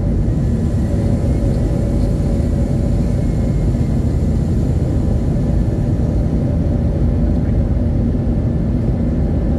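Airbus A320's IAE V2500 turbofans and airflow heard inside the cabin: a steady, loud rumble with a faint steady hum over it.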